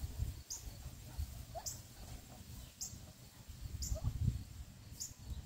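Wind rumbling on the microphone, with a faint high chirp repeating about once a second and two short rising calls.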